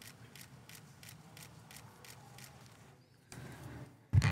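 Camera shutter clicking in a steady series, about three shots a second, over a low hum of room noise, stopping about three seconds in. A loud thump comes near the end.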